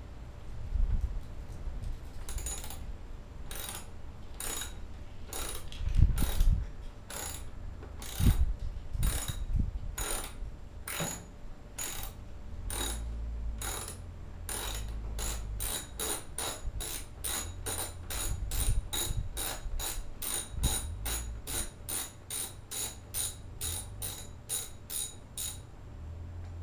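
A ratcheting tool clicking as it backs out a screw. The clicks are slow and even at first, then come faster, about two a second, from about halfway through. A few dull knocks from handling come in the first half.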